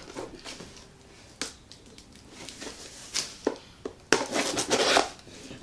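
Shipping packaging being opened and handled by hand: scattered small clicks and rustles, then a burst of loud rustling about four seconds in.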